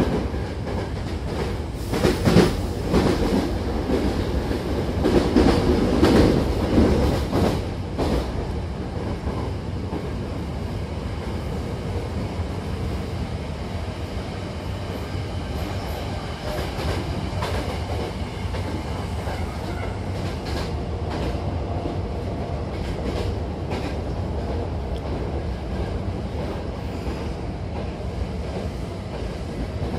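Hankyu train running at speed, heard inside the passenger car: a steady low rumble of wheels and running gear, with wheel clatter over the rail joints that is loudest in the first several seconds, then evens out.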